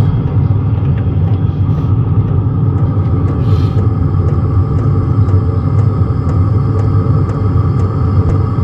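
Diesel air heater running steadily on its lowest setting, a low steady rumble from its burner and fan. From about four seconds in its fuel pump ticks faintly, about twice a second.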